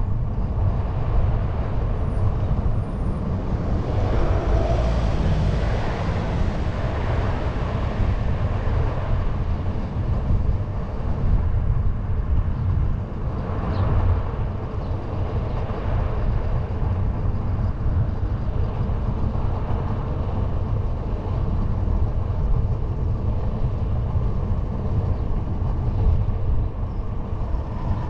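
Steady wind rush on the microphone and road rumble from a fat-tyre bike rolling along asphalt, heavy at the low end.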